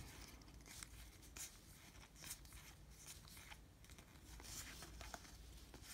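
Faint flicks and rustles of Topps baseball cards being slid one at a time off the front of a stack held in the hands, a soft card-edge flick every second or so over near-silent room tone.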